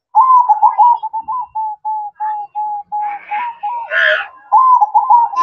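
Zebra dove (perkutut) cooing: a long run of short, clipped notes, quick at first, then evenly spaced at about three a second, and quick again near the end. A brief noisy sound rises under the notes about three to four seconds in.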